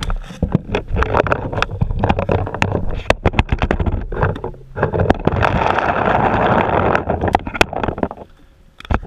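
Paintball markers firing: many sharp pops at uneven spacing over a low rumble, with a rush of noise for about two seconds past the middle.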